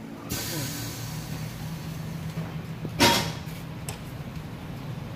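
Tyre shop air-tool noise: a steady low machine hum, a hiss that starts shortly in and fades over about a second, and a short, sharp blast of compressed air about three seconds in, the loudest sound.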